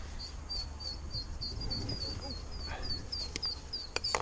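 Mallard ducklings peeping: a steady run of short high chirps, about three a second.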